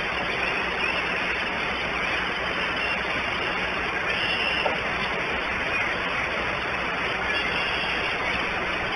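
Steady rushing outdoor hiss at a bald eagle nest, with a few faint high bird chirps near the start and about four seconds in.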